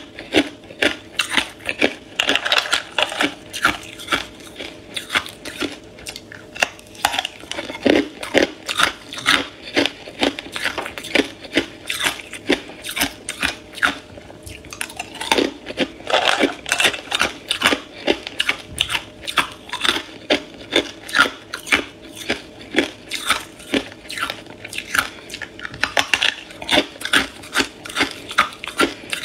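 Hard ice being bitten and crunched between the teeth: a rapid, continuous run of sharp cracks, several a second, with pieces of ice clinking in a steel bowl.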